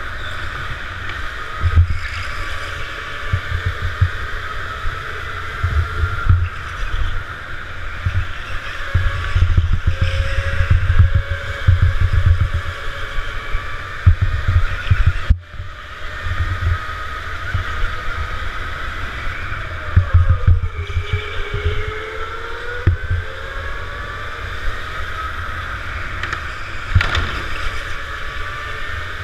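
Go-kart heard from onboard at racing speed: its motor gives a high whine that rises and falls in pitch as it accelerates and slows through the corners, with wind buffeting the microphone in uneven low rumbles.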